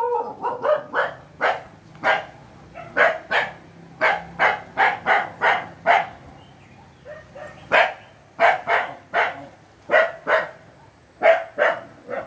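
Pet dog barking repeatedly: about two dozen sharp barks in quick runs, with a brief pause about halfway.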